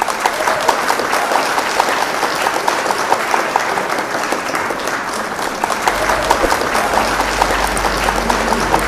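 Audience applauding: many people clapping at once in an auditorium.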